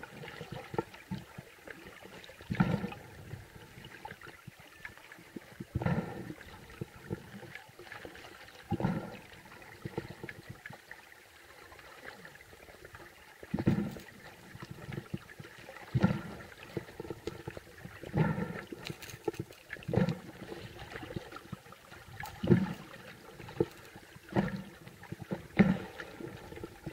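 Muffled water noise heard through a submerged camera's housing, broken by about ten dull thuds at uneven gaps of two to four seconds, as water knocks against the housing.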